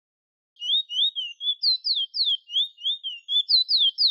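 Chestnut-bellied seed finch (the 'bullfinch' or 'towa towa') singing: a quick run of clear whistled notes, some rising and some falling steeply, about four a second, beginning about half a second in.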